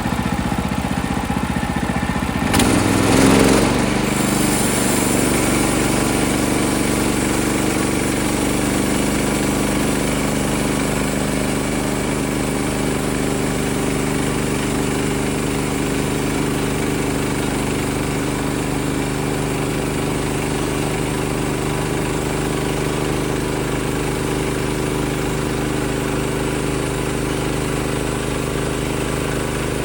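Small gas engine of a portable band sawmill running steadily, with a brief louder surge about three seconds in before settling back to a steady run.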